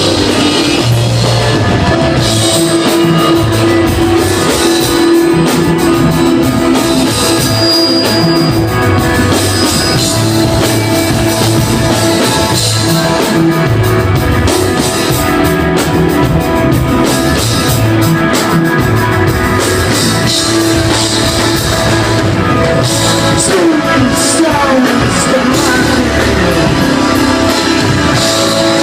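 Desert rock band playing live: electric guitar over bass and drums, loud and steady, with sliding guitar notes a few seconds before the end.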